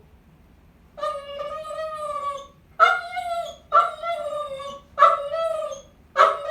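Dog baying: a string of drawn-out, howling bays, the first long and the rest shorter at about one a second, starting after about a second of quiet.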